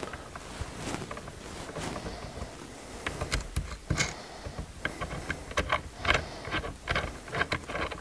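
Light metal clicks and clinks from a wrench and the lock plate compressor tool as it is unscrewed from the steering column shaft. The clicks are sparse at first and come several a second in the second half.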